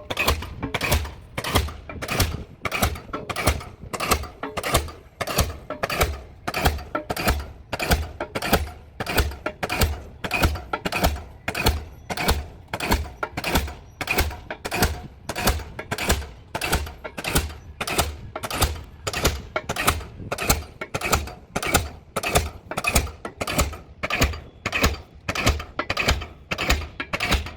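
Diesel pile hammer running, driving a pile with a steady rhythm of about one and a half blows a second, each blow a sharp knock with a deep thud beneath it.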